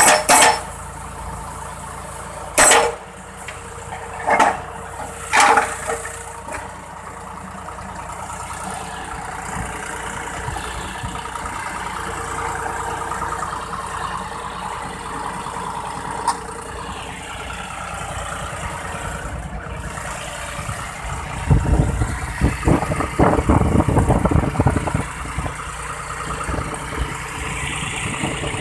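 Engine of a crash barrier (guardrail) installation machine running steadily. Three short, sharp bangs come a few seconds in, and a stretch of loud, irregular low pounding follows about two-thirds of the way through.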